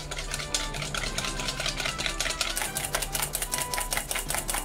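Hand whisk beating whipping cream in a stainless steel bowl: quick, even clicking strokes of the wires against the metal, several a second, getting more regular as it goes on.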